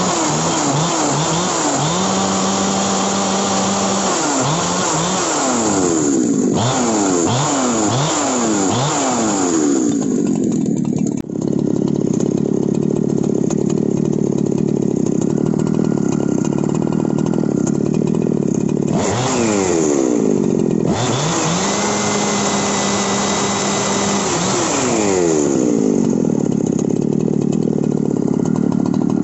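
Husqvarna 372 XP two-stroke chainsaw with a modified muffler, revved with no load: held at full throttle for a couple of seconds, then a string of quick throttle blips, then a long stretch of idling. Near the end it is held wide open again for a few seconds before dropping back to idle.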